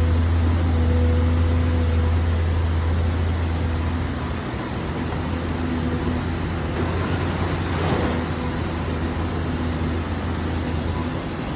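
Excavator's diesel engine running steadily with a low, even drone, with a brief louder noise about eight seconds in.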